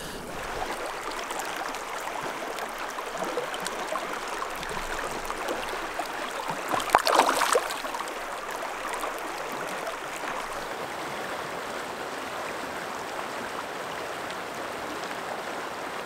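Shallow river water rushing and babbling over a rocky bed, with a brief louder splash about seven seconds in.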